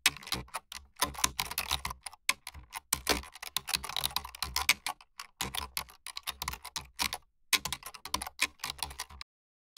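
Typing on a computer keyboard: a quick run of key clicks with two brief pauses, stopping shortly before the end.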